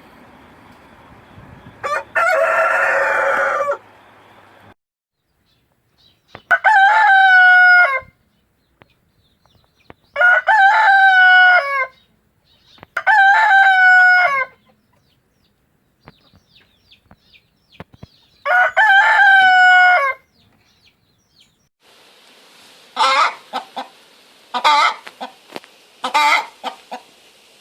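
A rooster crowing four times, each crow about a second and a half long and a few seconds apart, after a shorter harsher call about two seconds in. Near the end a chicken clucks in a quick run of short calls.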